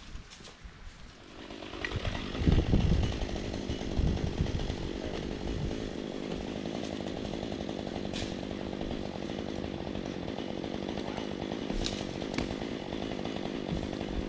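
Chainsaw engine coming up loud about two seconds in, then running steadily.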